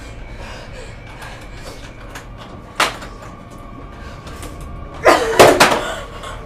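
An aluminium case being handled on a hard floor: a single sharp knock, then near the end a loud clatter of several quick bangs with a brief metallic ring as it is opened.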